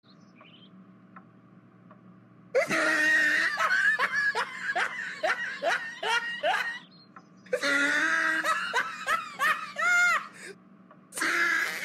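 A man laughing hard in three bouts of rapid, repeated ha-ha pulses. The first bout starts about two and a half seconds in, and there are short breaks between the bouts.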